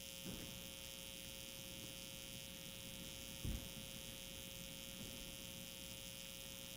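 Quiet, steady electrical hum with faint hiss, and one faint soft bump about three and a half seconds in.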